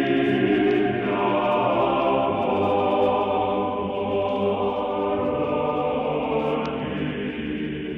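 A choir sings slow, sustained chords in the manner of Russian Orthodox liturgical chant. The harmony shifts about a second in and again near the end. The sound is dull and muffled, as on an old broadcast recording.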